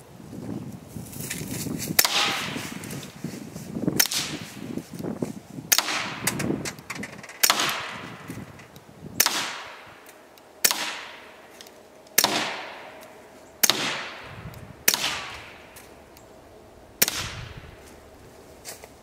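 Ten suppressed shots from a Browning Buck Mark .22 pistol fitted with an SWR Spectre II suppressor, firing Remington subsonic .22 LR rounds. Each shot is a sharp, fairly quiet crack with a short echo trailing off, fired at a steady pace of one every one and a half to two seconds.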